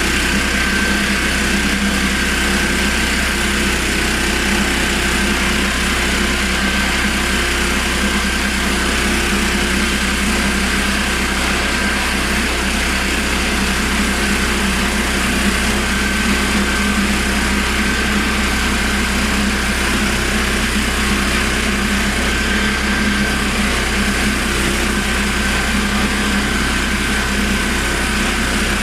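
Honda GX390 13 hp single-cylinder petrol engine running steadily under power, driving a homemade portable sawmill.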